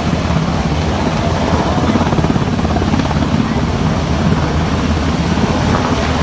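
Helicopter running close by, its rotor blades beating rapidly and steadily over the noise of the engines.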